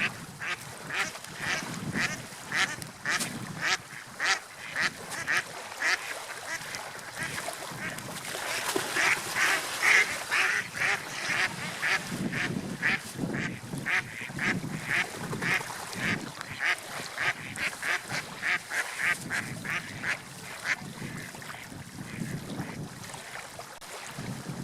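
Ducks quacking in a long rapid series, about two to three quacks a second, stopping about 21 seconds in, over a steady wash of water and wind.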